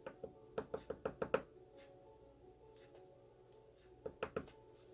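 Light clicks and taps of metal tweezers handling small lock pins and springs as a padlock is taken apart: a quick run of about six clicks in the first second and a half, a few scattered single taps, then a short cluster of clicks near the end.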